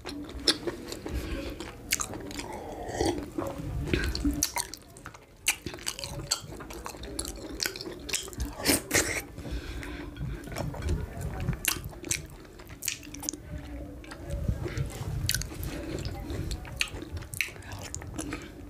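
Close-miked chewing and wet mouth sounds of someone eating amala with ewedu and gbegiri soup: many sharp, wet clicks and smacks over a low churning, with a brief lull about five seconds in.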